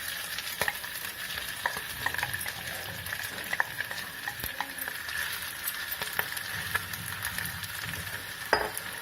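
Grated boiled potato frying in hot ghee in a pan with a steady sizzle, stirred with a spoon that scrapes and clicks against the pan now and then.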